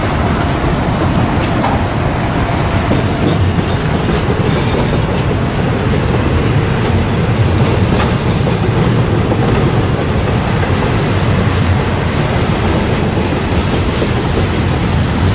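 Double-stack intermodal freight train rolling past, a steady loud rumble of wheels on rail with a few faint clacks.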